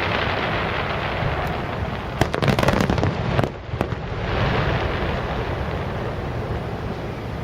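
Aerial fireworks bursting over a dense, continuous crackle, with a quick run of sharp bangs between about two and four seconds in.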